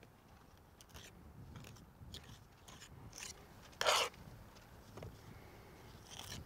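Margin trowel scraping mortar off a hawk and packing it into fieldstone joints: a series of short, irregular scrapes and taps, with one louder scrape about four seconds in.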